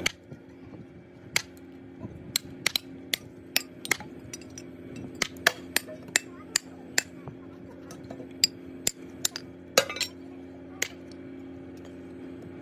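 Hammer blows on an old cast-iron truck brake drum, breaking it apart: a run of sharp metallic clanks at irregular intervals, some in quick clusters, that stop about eleven seconds in.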